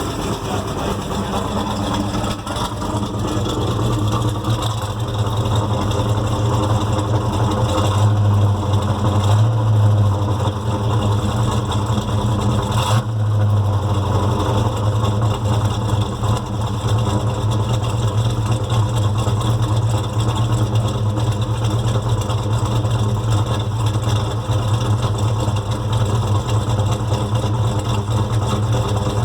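Chevrolet 396 big-block V8 running steadily, a little louder for a couple of seconds about eight seconds in, with a ticking valvetrain noise that sounds like lifter tick but comes from a rocker arm that has worked loose. A single sharp click about thirteen seconds in.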